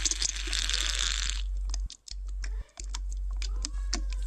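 A second and a half of loud hiss, then a run of rapid, irregular sharp clicks like typing on a keyboard, over a steady low hum that cuts out briefly twice.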